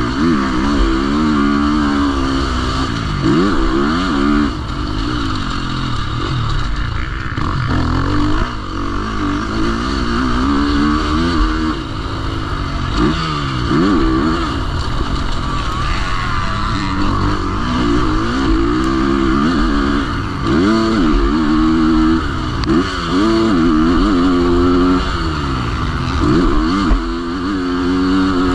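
Motocross dirt bike engine at speed on a track, its pitch rising and falling again and again as the rider opens and closes the throttle and shifts gears, heard from on board the bike.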